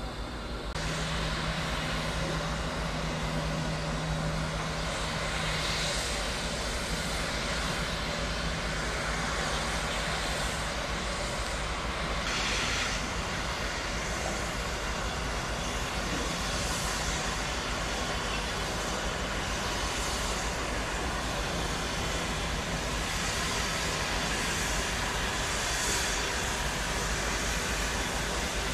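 Train running past: a steady, even rush of noise, with a low steady hum in the first several seconds that weakens about six seconds in.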